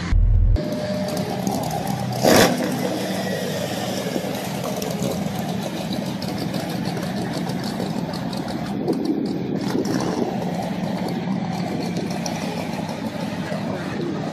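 Ford Ranchero's engine running at a steady rumble, with a deep thump at the very start and a brief loud burst about two seconds in.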